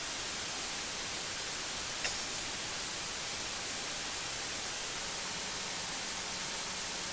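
Steady, even hiss with no distinct source heard, and one faint tick about two seconds in.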